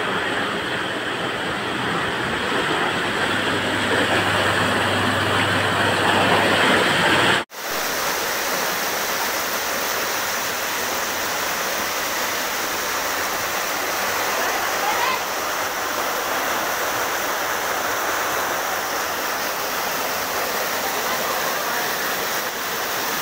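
Steady rush of fast-flowing floodwater and heavy rain. It breaks off for an instant about seven seconds in and comes back brighter and hissier.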